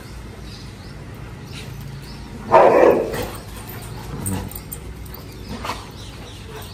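Dogs at rough play: one dog gives a single loud, short bark about two and a half seconds in, followed by two fainter short calls.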